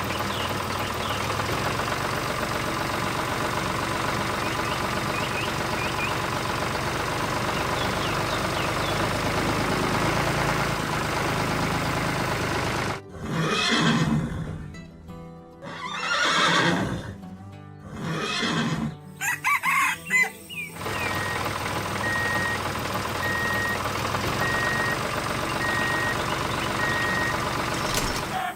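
Cartoon background music, broken around the middle by three separate loud sounds about a second each. The three sounds are most likely farm-animal sound effects such as horse whinnies or rooster crows.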